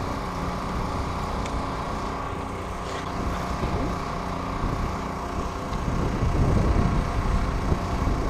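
Portable generator running steadily with an even engine hum. A deeper low rumble swells for a second or two about six seconds in.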